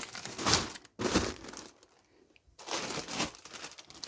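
Plastic grocery packaging crinkling as items are handled, in three short rustling bouts.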